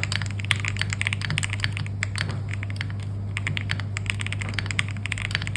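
Fast, continuous typing on a mechanical keyboard fitted with Gateron Pro Silver linear switches: a dense run of light key clacks that thins briefly about halfway through. A steady low hum runs underneath.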